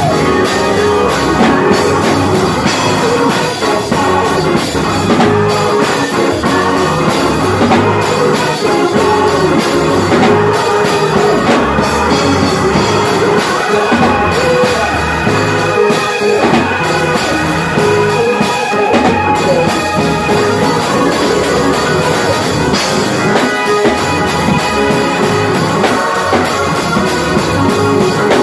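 Live organ playing full chords, accompanying a praise team's song with a steady drum-kit beat.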